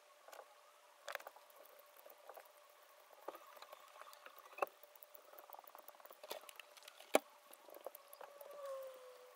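Utility knife blade carving shavings off a small block of wood while the chamfers of a tiny lure body are cut: faint scratchy scraping with scattered clicks, the sharpest about four and a half and seven seconds in.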